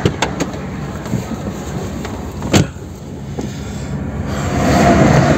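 Car cabin sound with traffic passing outside: a steady low engine hum, a sharp click about two and a half seconds in, and the rush of a passing vehicle swelling loudest near the end.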